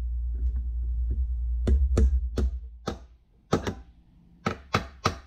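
Ball-peen hammer tapping a motorcycle shift shaft's male end into its mating female piece held in a vise, a tight fit. A low rumble runs under the first half. Then come a few spaced, sharp metal taps, and near the end a quicker even run of about four taps a second.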